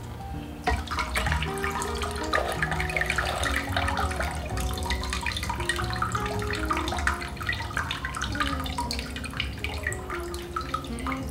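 Water splashing and trickling out of a soaked potted plant's nursery pot as it is lifted from a bowl of water and drained back into it. It starts with a splash just under a second in and thins toward dripping near the end.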